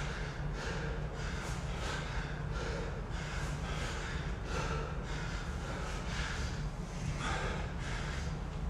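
A person breathing hard and fast during a workout, short forceful breaths about twice a second over a steady low rumble.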